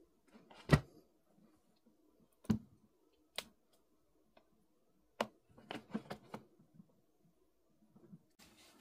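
Hand knocking and clicking against the hard plastic inside the brew-unit compartment of a Philips automatic coffee machine: scattered sharp clicks and knocks, the loudest about a second in, with a quick run of them a little past the middle.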